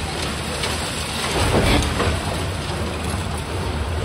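Tracked demolition excavator's diesel engine running steadily while its jaw attachment breaks up a concrete floor slab, with rubble falling, over a steady hiss.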